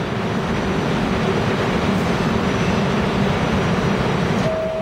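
Steady rumble and hiss of an R32 subway train standing at the platform. Near the end a steady chime tone begins: the first note of the two-note door-closing chime.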